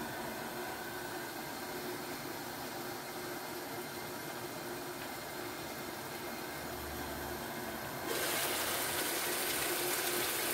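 Chicken in tomato masala sauce simmering in a frying pan on a gas hob, a steady low sizzling hiss under the glass lid. About eight seconds in the lid comes off and the sizzle turns louder and brighter, and a sharp knock follows at the very end.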